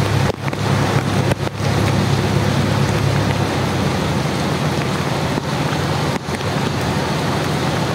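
Heavy rain falling steadily, with a low vehicle engine rumble under it that is strongest for the first three seconds or so and then eases off.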